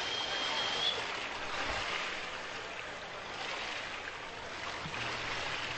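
Steady hiss of swimming-pool venue ambience, water and spectators' background noise, while backstroke swimmers hold still on the blocks before the start signal. A faint high steady tone sounds during the first second.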